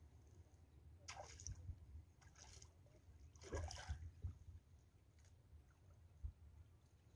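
Faint splashes of a hooked tilapia thrashing at the water's surface as it is reeled in: three short splashes, about a second in, near two and a half seconds, and the longest around three and a half seconds.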